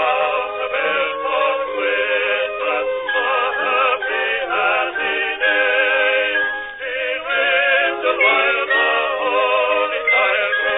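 Music with singing voices, several parts sounding together in harmony.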